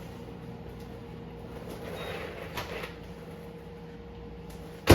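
A single sharp knock or clunk near the end, over a steady low electrical hum that holds a constant pitch.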